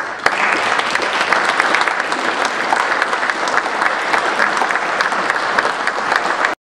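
Audience applauding: sustained clapping from a seated audience that begins right away and cuts off abruptly near the end.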